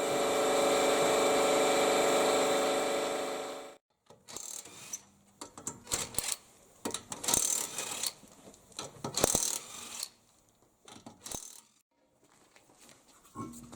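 A short stretch of music that fades out, then irregular metallic clicking and clinking of hand tools and wheel nuts during a tyre change, with ratchet-like clicks.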